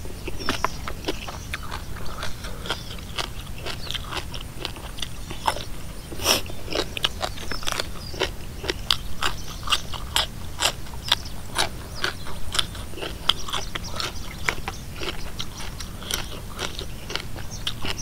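A person chewing and biting crunchy food close to the microphone: spicy Isan papaya salad with chicken feet and mixed seafood, and raw yardlong beans, with many sharp irregular crunches and clicks.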